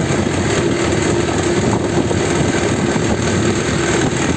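Two-blade farata fan running with a loud, steady rattling noise and a hum. The cause is its motor shaft worn loose inside the bearing, not a bad bearing.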